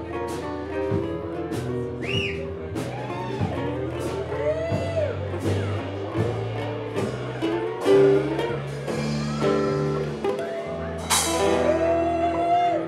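Live band of electric bass, drum kit and acoustic guitar playing, with cymbal strokes throughout and a loud cymbal crash near the end.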